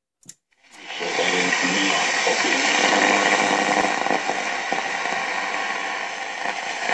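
VEF Spidola 230-1 radio switched on with a click of its push-button, then steady static hiss from its loudspeaker, with faint tones of a weak station showing through the noise.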